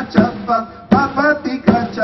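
Men singing an Andean song together, with a beat struck roughly every half second.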